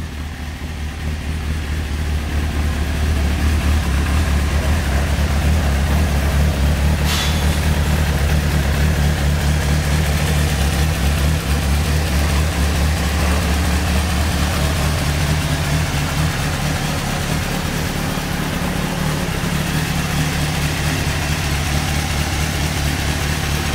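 2007 Honda CBF600's inline four-cylinder engine idling steadily, growing louder over the first two seconds.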